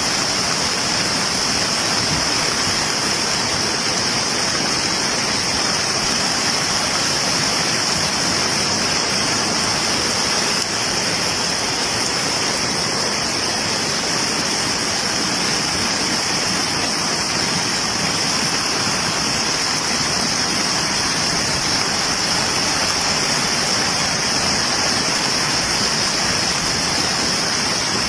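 A river in flood, fast brown water rushing by in a steady, unbroken wash of water noise with a constant high hiss over it.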